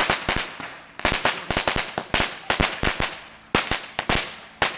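A long firecracker string, an 8,000-round roll tied to a 2,000-round roll, going off in rapid, irregular cracks. There are brief lulls about a second in and again near three and a half seconds.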